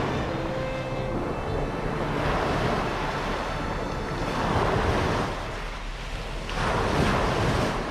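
Small sea waves breaking at the shoreline and washing up over a coarse-sand beach, the foaming wash swelling and easing about four times, with wind rumbling on the microphone.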